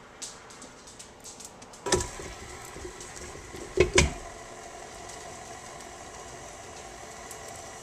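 KitchenAid stand mixer beating cornbread batter with its flat beater: a few light clicks, a sharp knock about two seconds in and a double knock about four seconds in, then the motor runs with a steady hum.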